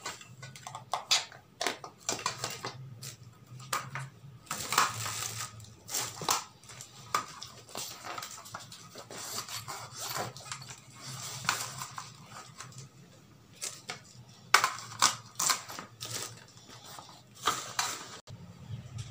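Irregular small clicks, taps and rustles from handling close to the microphone, over a faint low steady hum.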